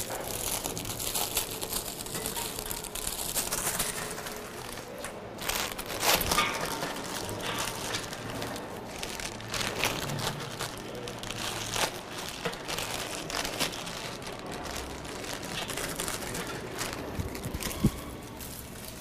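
Graham cracker packaging being handled and opened: irregular crinkling and rustling of wrappers, with a few sharper crackles, the loudest about six seconds in and near the end.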